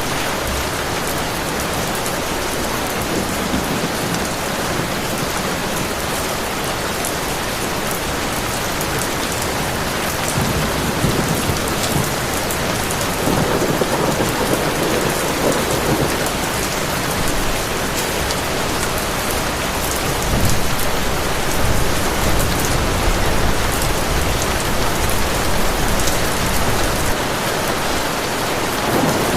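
Heavy rain falling steadily, with thunder rolling in and out beneath it, at its loudest about two thirds of the way through.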